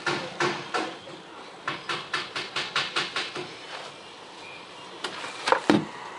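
Fingers rubbing and pressing vinyl wrap onto a plastic key fob in short rhythmic strokes, about three a second and then quicker, before stopping. Near the end come a few loud knocks and thumps of things being handled on the desk.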